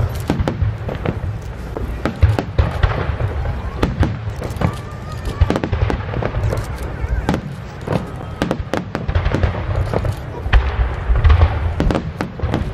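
Aerial fireworks shells bursting in quick succession: many sharp bangs and crackles over a continuous low rumble.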